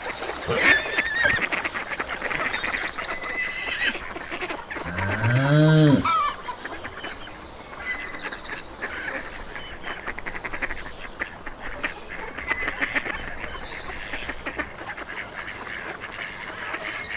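Farmyard ambience with geese honking and ducks quacking, many short calls overlapping. About five seconds in comes one loud, low, drawn-out animal call that rises and then falls in pitch.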